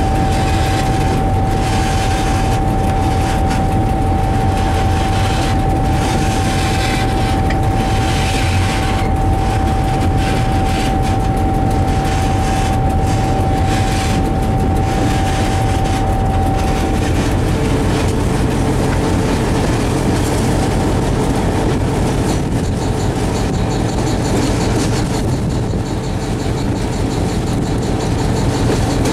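Diesel locomotive running, heard from inside its cab: a steady low engine drone with the noise of the wheels on the track, and a steady whine that stops a little past halfway through.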